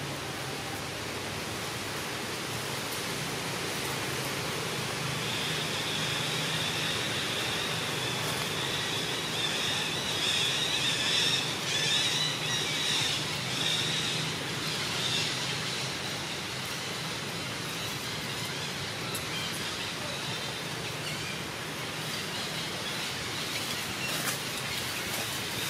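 Steady outdoor background noise, with a high, wavering buzz that comes in about five seconds in and fades out around the middle, over a faint low hum.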